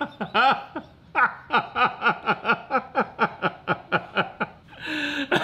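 Men laughing hard: a long run of quick 'ha' pulses, about six a second, each dropping in pitch.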